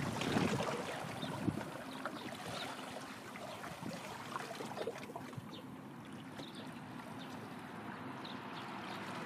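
Waterside ambience of small waves lapping and trickling at the water's edge, an even wash of water noise that is a little louder in the first second or so.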